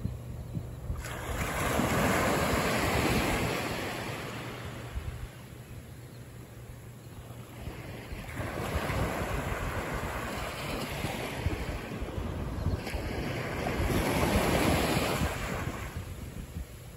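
Small waves breaking gently and washing up a sandy shore. The surf swells and fades three times: about a second in, around eight seconds in, and again near the end.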